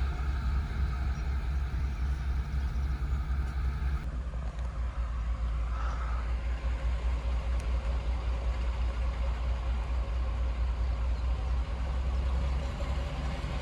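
Diesel locomotive engine running steadily with a low rumble. A higher hum in it drops away about four seconds in.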